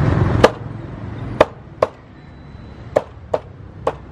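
Meat cleaver chopping roasted duck on a round wooden chopping block: six sharp chops at uneven spacing, the first the loudest.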